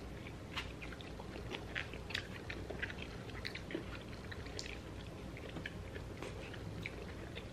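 Close-up chewing and biting of fresh orange segments by two people: a scatter of short, irregular mouth clicks and smacks.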